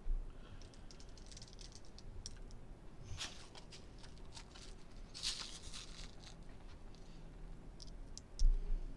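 Sprinkles shaken from a small plastic container onto a cup of ice cream and crushed Oreos: faint scattered rattling, with short louder shakes about three and five seconds in. A low bump near the end.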